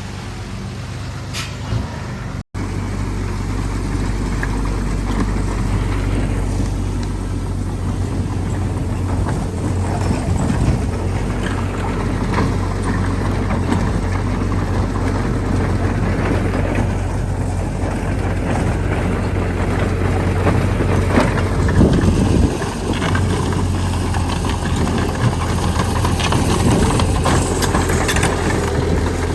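Heavy diesel machinery engine running steadily, with occasional knocks and rattles.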